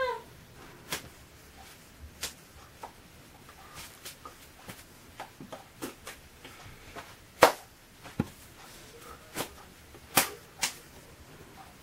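Sharp hand slaps and claps, about ten scattered strikes at irregular intervals, the loudest a little past halfway.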